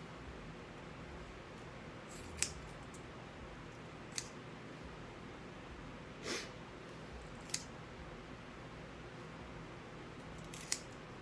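Hair-cutting scissors snipping through long hair: four sharp, separate snips a couple of seconds apart, with a softer, longer rustle about six seconds in.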